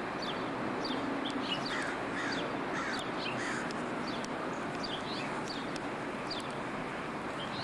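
Birds calling, with many short falling chirps a few times a second, over a steady outdoor hiss.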